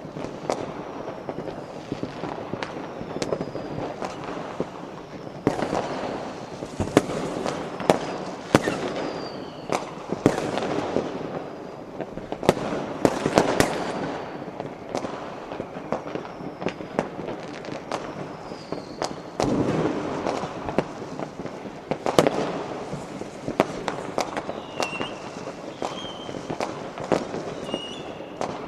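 A large fireworks display with firecrackers: a continuous dense crackle of firecrackers punctuated by many sharp bangs, with a few high whistles falling in pitch.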